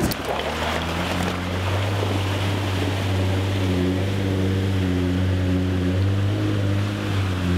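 Jeep Wrangler Rubicon JL wading through a deep muddy water crossing: a steady low engine drone under the continuous rush and churn of water pushed aside by the tyres and bumper.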